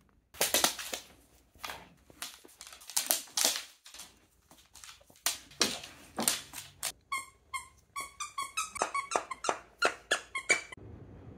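Squeaker inside a plush dog toy squeaking over and over as a dog bites and shakes it, ending in a quick run of short squeaks, several a second.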